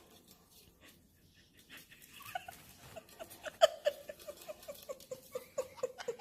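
A pet parrot calling in a quick run of short, evenly repeated notes, about four a second. The calls begin about two seconds in, grow louder and are loudest near the middle.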